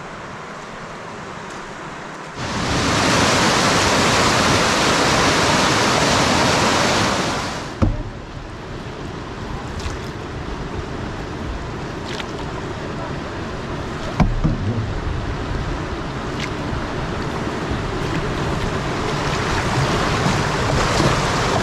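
Whitewater rushing around a canoe in river rapids. The rush is loudest for about five seconds early in the stretch, then settles to a steadier wash with a few sharp knocks.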